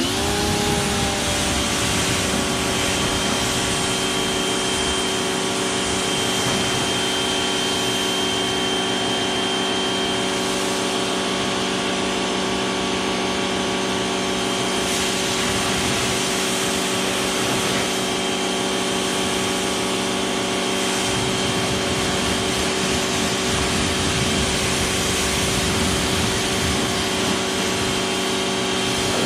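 Greenworks electric pressure washer's motor and pump kicking on and running steadily under load, with the hiss of water spraying from the gun.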